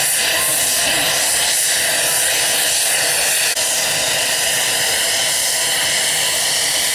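AH-64D Apache helicopter's turbine running on the ground, a steady, loud whine and hiss, with a brief drop about halfway through.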